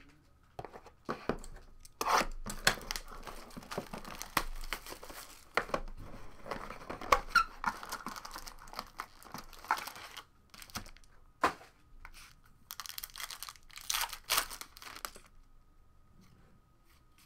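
Trading-card box packaging being torn open and its plastic and foil wrapping crinkled and crumpled, with irregular sharp crackles and rustles that stop about 15 seconds in.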